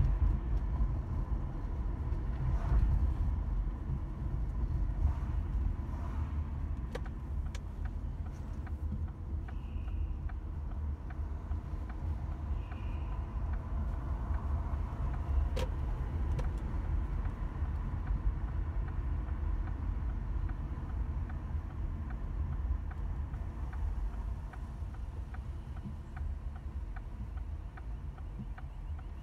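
Car driving on city roads, a steady low rumble of engine and tyre noise. In the second half a light, regular ticking runs under it.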